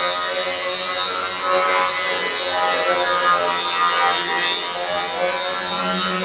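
Loud dance music over a PA sound system, coming out on the recording as a harsh, steady buzz.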